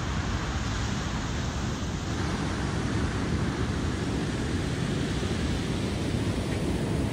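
Ocean surf washing onto a sandy beach: a steady rumble and hiss.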